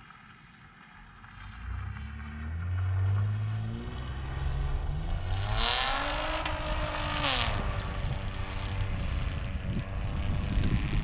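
Car engine and exhaust pulling away under acceleration: the note climbs in pitch for a few seconds, holds, then drops about seven and a half seconds in, with two brief hissing bursts. The exhaust has just been patched with an added pipe to stop a leak that sent fumes into the trunk.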